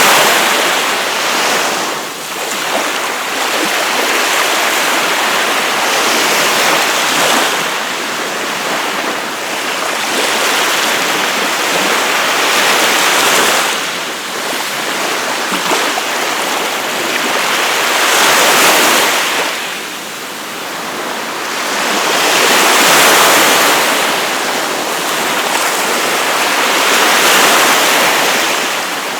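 Gulf of Mexico surf breaking and washing up a beach: a continuous rush of water that swells and eases every few seconds as each wave comes in and draws back.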